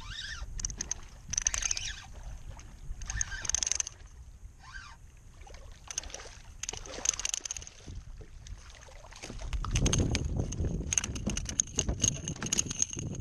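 Hooked redfish splashing and thrashing at the surface beside a kayak as it is reeled in, in scattered short splashes; about ten seconds in the splashing and knocking grows louder as the fish is swung aboard and flaps against the hull.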